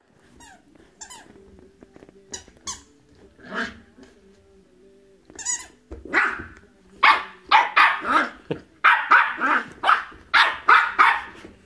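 West Highland White Terrier puppy barking in play: a few short high squeaks in the first half, then from about six seconds in a fast, loud run of high-pitched puppy barks, two to three a second.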